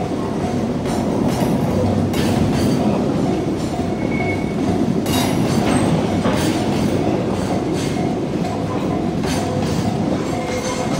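Freight train of container flatcars rolling steadily past: a continuous wheel rumble with irregular clicks as the wheels cross the rail joints. Over it the level crossing's warning bell rings on and on in an even repeating ding.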